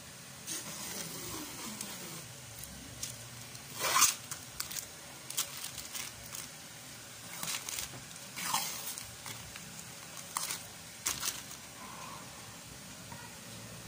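Old self-adhesive vinyl wallpaper being peeled off a refrigerator door by hand: a run of short ripping and crinkling sounds as the sticky film pulls away, the loudest rip about four seconds in. The film is very sticky and comes away in pieces.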